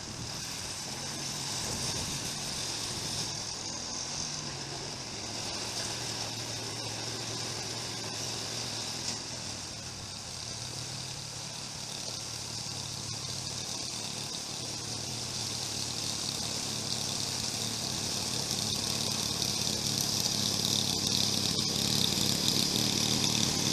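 Snowblower engine running steadily while clearing snow, a low even hum under a wide hiss, growing a little louder toward the end.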